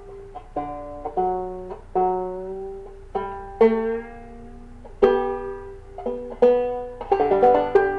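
Five-string banjo strings plucked one or two at a time, letting each note ring and fade, while the banjo is retuned from open D tuning up to standard open G tuning; near the end a quicker run of notes is picked.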